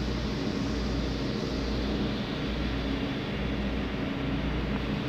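Steady mechanical hum and hiss of a break room's machinery, such as the refrigerated drink coolers and ventilation running, with a low rumble underneath that briefly drops out about once a second.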